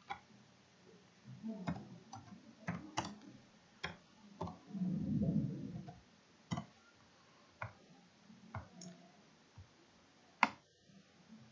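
Computer mouse clicking: a dozen or so sharp single clicks at uneven intervals while writing with an on-screen pen tool, with a soft low hum about five seconds in.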